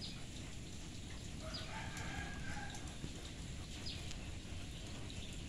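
A rooster crows once, about one and a half seconds in, over a steady outdoor hiss of rain-soaked surroundings. A few short, high chirps from small birds come now and then.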